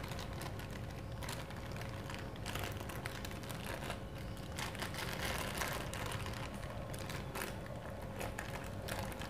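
Thin plastic sheet crinkling and rustling in scattered small crackles as hands roll soft khoya into a log inside it, over a faint steady hum.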